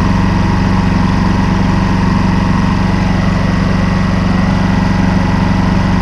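Honda EU2200i inverter generator's single-cylinder engine idling steadily, and the owner calls it "really smooth". The rough, choppy eco-mode idle has been cured by a correctly gapped spark plug.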